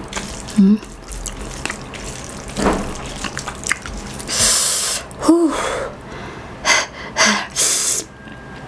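Rice and shredded chicken pastil being squished and kneaded by hand on a banana leaf, with small wet sounds, then a few sharp hissing breaths and a short hum in the second half, the eater's reaction to the chili heat.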